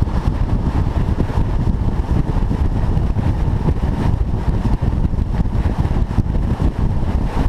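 A car on the move: a steady low rumble of engine and road noise with no revving or gear change.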